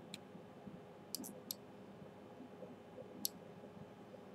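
Computer mouse buttons clicking: about five short, sharp clicks, three of them close together a little after the first second, over a faint steady hum.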